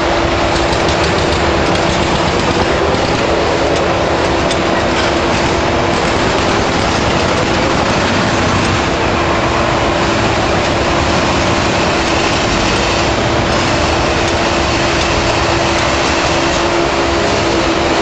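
Sweet corn thresher machine running: a steady mechanical noise with one constant humming tone that holds throughout.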